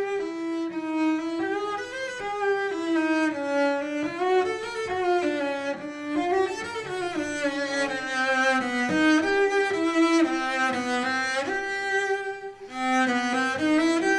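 Solo cello playing a slow bowed melody, with slides between some notes and a brief dip near the end.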